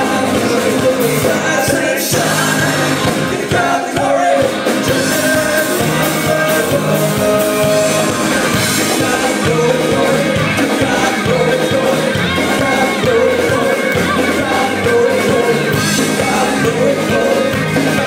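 Live alt-country band playing loudly: upright bass, banjo and electric guitar driving a steady beat, with a lead vocal sung over it.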